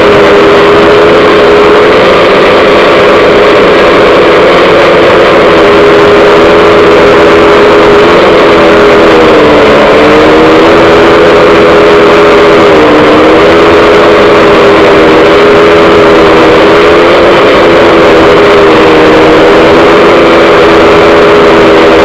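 DJI F550 hexacopter's brushless motors and propellers running, heard loud from a camera mounted on one of its arms: a steady, layered buzz. The pitch dips briefly about ten seconds in and again about thirteen seconds in as the motors slow.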